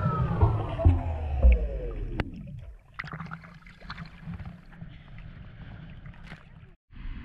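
Underwater, a boat motor's whine falls steadily in pitch and fades out over a muffled rumble with clicks. About three seconds in it gives way to quieter water sloshing and splashing at the surface, with scattered ticks.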